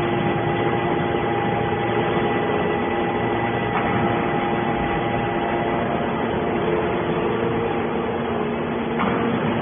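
Hydraulic metal scrap baler running: a steady mechanical hum with several held tones, and a faint click about four seconds in and again near the end.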